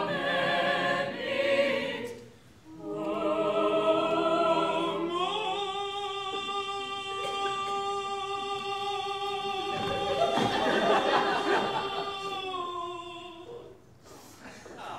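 Stage cast singing together in harmony. After a short break about two seconds in, the voices rise onto a long held final chord, which cuts off near the end.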